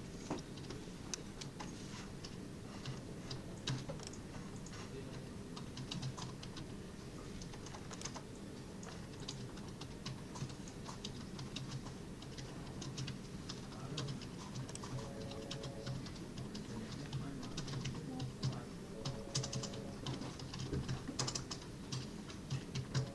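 Irregular light clicks and taps, at times in quick runs, over a low steady hum, with a short steady tone sounding briefly three times in the second half.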